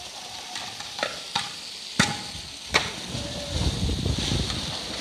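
Four sharp knocks in the first three seconds, the loudest about two seconds in, then a polar bear going into its pool and churning the water, a splashing wash through the last two seconds.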